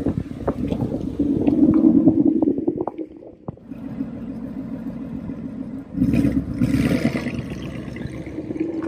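Ford Mustang GT's 5.0 V8 running loud through its exhaust: it revs up, crackles as the revs fall, then surges again as the car pulls away and eases off.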